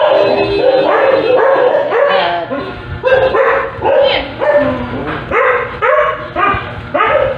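A woman talking in quick, animated phrases with short pauses between them.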